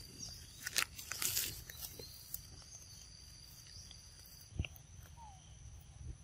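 Scattered light rustles and clicks, with one sharper knock about four and a half seconds in, over faint outdoor ambience.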